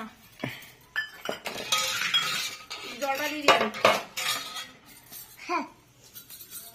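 Small stainless-steel bowls and spoons clinking and clattering irregularly as they are set down and handled on a hard tiled floor.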